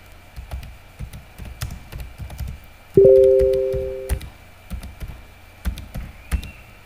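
Computer keyboard keys clicking in an irregular run as a search query is typed. About three seconds in, a two-tone notification chime rings for about a second and fades; it is the loudest sound.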